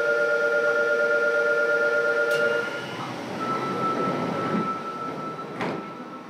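Fukuoka City Subway 2000 series train heard from inside a car: a steady hum of several tones starts suddenly and cuts off after about three seconds. A single higher steady tone follows over the rumble of running noise, with two sharp clicks.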